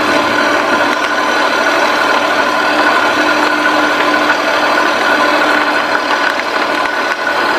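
A kei truck driving along a road, its engine running and its tyres rolling on the surface, heard as a loud, steady rush from a camera mounted low beside a wheel.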